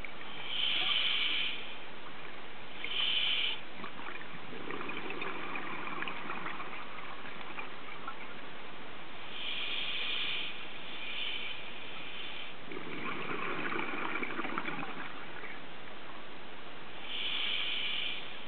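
Scuba diver breathing through a regulator, heard underwater: a hiss from the demand valve on each inhale, then a bubbling rush of exhaled air, in a slow cycle about every eight seconds.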